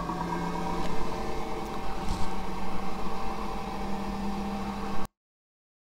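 Creality resin wash-and-cure station running on its cure cycle: a steady electric hum from its turntable motor and fan, with several constant tones. It cuts off suddenly about five seconds in.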